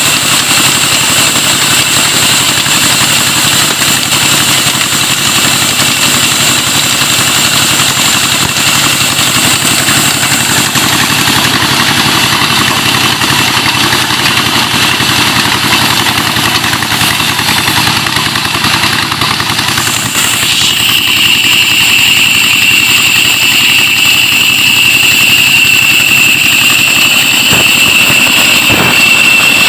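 Stationary Petter-type diesel engine driving a wood-cutting saw, running steadily with a fast, even beat. About twenty seconds in, a loud high steady whine sets in over the engine and holds.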